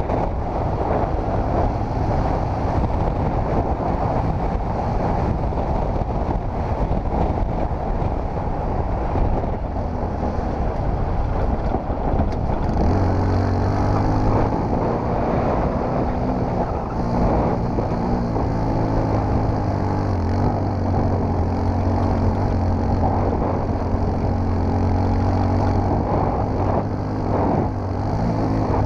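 Yamaha WR supermoto motorcycle's single-cylinder engine running while riding a dirt track, mixed with wind rush and rumble on the microphone. From about halfway the engine settles into a steady, clearer note.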